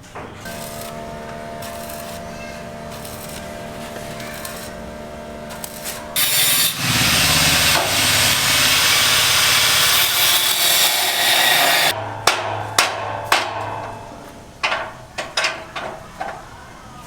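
A power tool's motor runs with a steady hum, then cuts loudly for about six seconds from about six seconds in. A series of sharp knocks and clatters follows.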